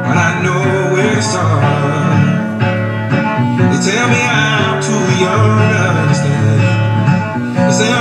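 Background music: a song with guitar.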